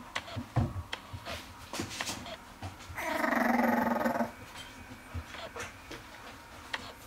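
French bulldog puppy growling once, a sustained low growl of just over a second about three seconds in. Scattered light clicks and taps come before and after it.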